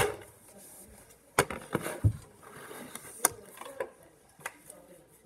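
A plastic RC truck is set down on a wooden floor with a knock, then sharp clicks and knocks follow as hands handle its chassis. The car's motor is not running.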